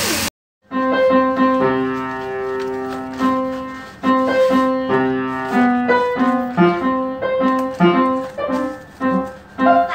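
Background piano music after a brief drop to silence at the start: a melody of held single notes that gives way to shorter notes in a quicker rhythm in the second half.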